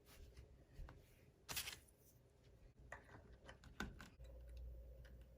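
Near silence with a few faint clicks, the plainest about a second and a half in and another near four seconds, and a faint low hum coming in just after that.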